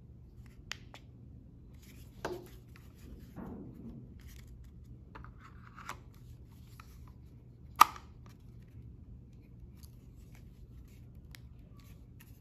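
Plastic handling sounds as a DJI Air 2S flight battery is slid into the drone's battery bay: scattered clicks and a short scrape, then one loud sharp click about eight seconds in as the battery latches into place.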